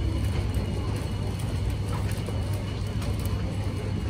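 Busy underground train-station platform ambience: a steady low hum with a background murmur of the waiting crowd.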